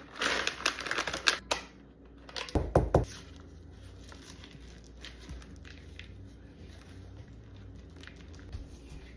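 Crinkling of a bag of macadamia nuts as they are added to muffin batter, dense crackling for about a second and a half. A couple of dull knocks follow about three seconds in, then it goes quiet.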